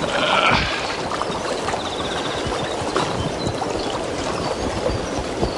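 River water rushing steadily, with a short louder burst of noise in the first half-second.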